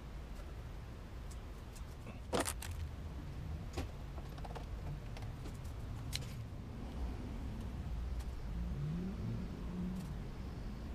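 A few sharp clicks and taps over a steady low rumble. The loudest click comes about two and a half seconds in.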